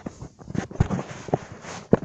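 Handling noise from a phone held against clothing: irregular knocks, bumps and fabric rustling, with the sharpest knock near the end.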